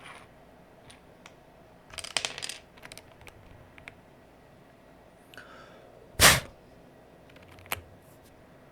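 Plastic keycaps being fitted back onto the switches of an Aula F99 Pro mechanical keyboard. There is a quick flurry of clicks about two seconds in, a faint scrape, a single loud snap a little after six seconds, and a sharp click near the end.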